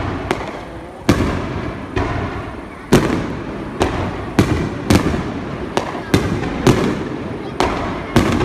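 Aerial fireworks bursting in a finale barrage: a rapid run of sharp, loud booms, about one or two a second and closer together near the end, each trailed by a rolling echo.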